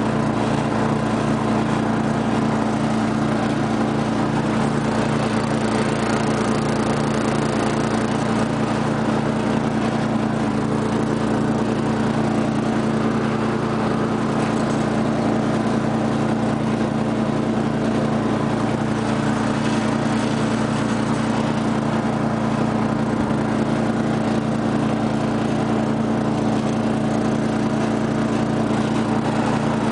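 1999 Murray rear-engine riding mower's 12 hp Briggs & Stratton engine running steadily while mowing grass.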